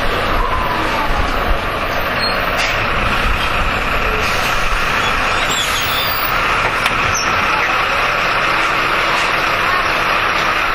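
Jelcz M121M city bus driving, heard from inside the passenger cabin: steady engine and road noise, with a couple of short sharp clicks.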